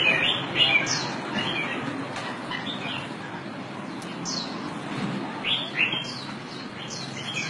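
Birds chirping: short, high chirps, each falling in pitch, come in small clusters again and again over a steady low background hum.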